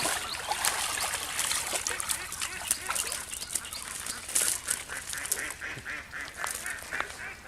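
Birds calling in a series of short repeated notes over a noisy background of splashes and clicks.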